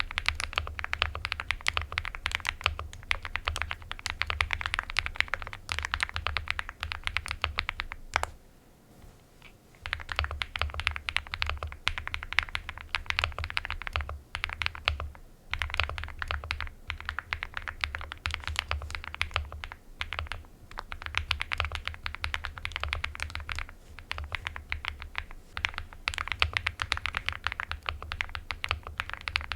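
Continuous fast typing on a mechanical keyboard fitted with KTT Cabbage Tofu switches: rapid keystroke clicks, with a pause of about a second and a half around eight seconds in and a few shorter breaks later.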